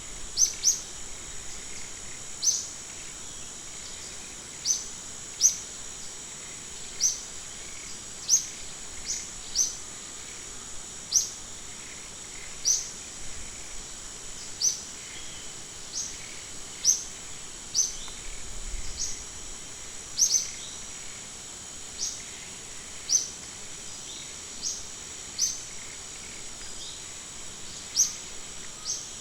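A small animal's short, sharp, high chirps, repeated about once every one to two seconds, over a steady high-pitched insect drone.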